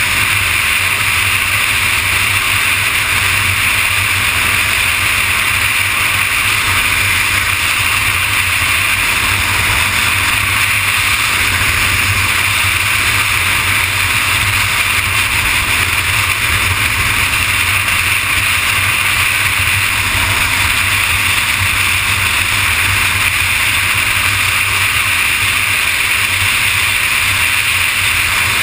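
Kawasaki ZX-6R inline-four sport bike cruising at steady freeway speed, heard from a camera mounted on the bike: a loud, unchanging rush of wind over the microphone mixed with the drone of engine and road. No revving or gear changes.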